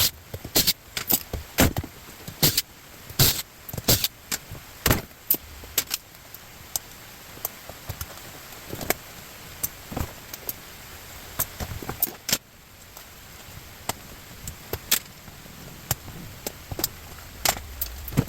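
Scrap metal being handled: irregular sharp clanks and clinks of metal pieces knocking together, frequent at first and then sparser.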